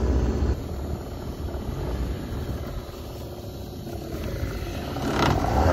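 Outboard motor of a small boat running with a low rumble, easing off about half a second in and picking up again near the end.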